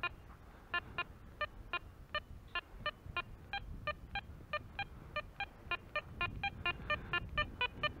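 Metal detector beeping over a buried target as the coil is swept back and forth: short multi-tone beeps about four a second, coming faster toward the end. The detector reads the target as deep.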